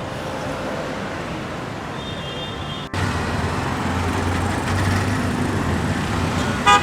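City street traffic: a steady noise of vehicles running and passing. It breaks off abruptly about three seconds in and comes back louder, with a low engine hum. Near the end there is one short, loud beep.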